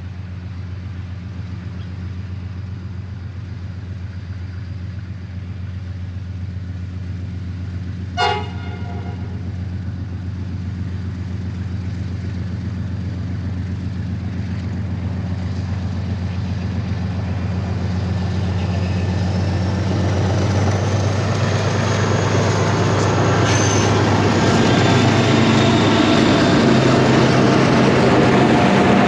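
Diesel-electric freight locomotives approaching and passing: a steady low engine drone that grows louder as the train nears, with one short toot of the train horn about eight seconds in. The engine and wheel noise is loudest near the end as the lead locomotive goes by.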